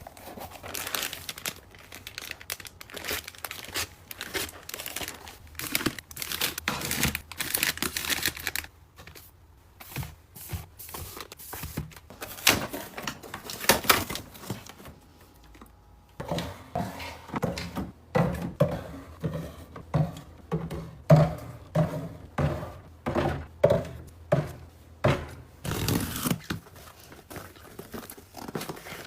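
Hands handling packaging: crinkling and tearing over the first half, then a run of light knocks and clicks, about one or two a second.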